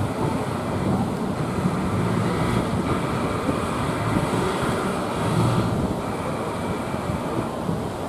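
Wind buffeting the microphone over the rush of surf breaking at a river mouth, with the steady drone of wooden fishing boats' engines as they push through the waves.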